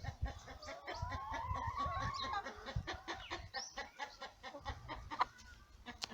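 Domestic chickens clucking, one drawing out a long call about a second in, over scattered light clicks and knocks.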